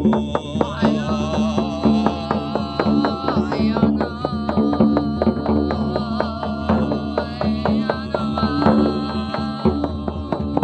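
Live music: fast, evenly spaced drum strikes under a wavering sung voice, over a steady low drone.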